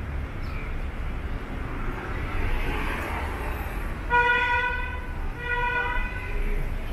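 A vehicle horn honks twice, two steady blasts each under a second long, the second about a second and a half after the first. Beneath them is a steady low rumble of city street noise.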